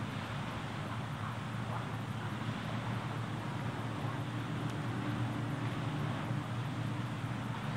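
Steady outdoor beach ambience: an even low rumble with a constant hiss above it, and no distinct events.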